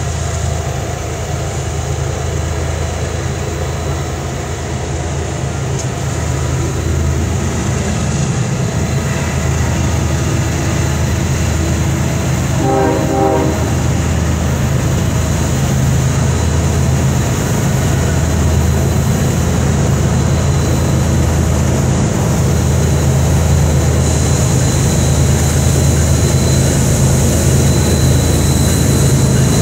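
Diesel locomotive of a heavy coal train approaching: a steady low engine rumble that grows louder as it nears, with a short horn blast about halfway and a thin high squeal setting in near the end.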